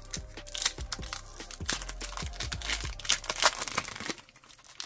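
Foil booster-pack wrapper crinkling and tearing as it is ripped open by hand and the trading cards are pulled out of it: a dense run of crackles that thins out about four seconds in.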